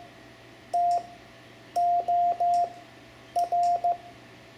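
Morse code sent as keyed beeps of one steady tone: one long dah, then three dahs, then dit-dah-dit. These are the letters T, O and R of the practice word "store" in CW.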